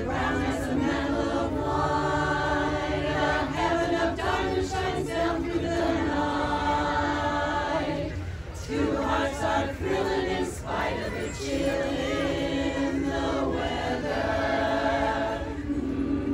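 Women's chorus singing a cappella in close harmony: sustained chords with two short breaks past the middle.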